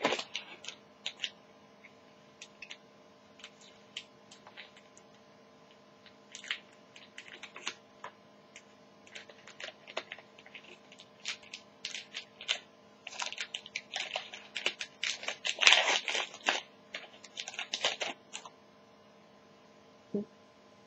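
Trading card pack wrapper crinkling and crackling as it is picked and torn open by hand, among scattered small clicks and rustles of cards being handled. The crinkling is densest and loudest about three-quarters of the way through.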